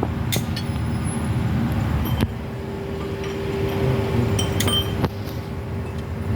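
Metal clinking three times, sharp with a short ring, over a steady hum and low rumble.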